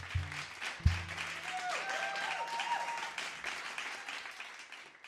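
Audience applauding, with a little cheering, as the song's last low notes ring out and die away in the first second or so; the clapping tapers off and stops near the end.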